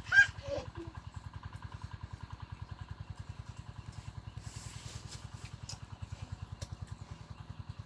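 A small engine idling with a steady, even putter. A short high chirping call sounds right at the start.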